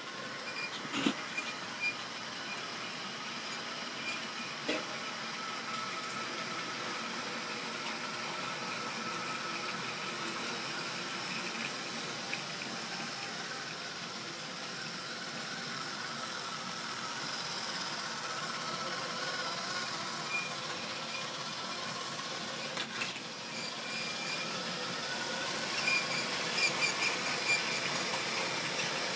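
Model railway train running along the track: a steady whirr and hiss of the small electric motor and wheels on the rails, with a few sharp clicks and a patch of quick ticking near the end.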